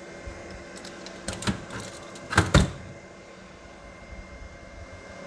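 A few sharp knocks and clatters, the loudest pair about two and a half seconds in, over a steady low hum.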